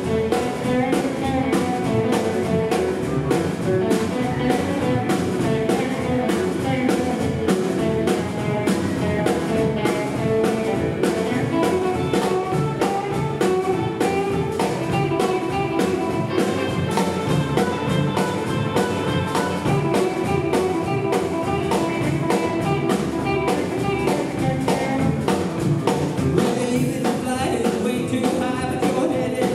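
Live rockabilly band playing: upright double bass, two electric guitars and a Gretsch drum kit keeping a steady driving beat.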